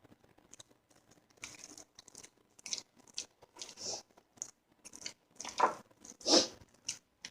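Ground chicken kebab mixture (keema with grated onion, spices, breadcrumbs and ghee) being mixed in a bowl: a string of short, irregular mixing sounds, a little louder near the end.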